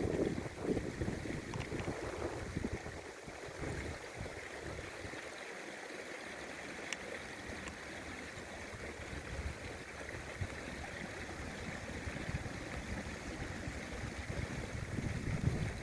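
River water running steadily, with strong wind buffeting the microphone at the start and again near the end, calmer in between.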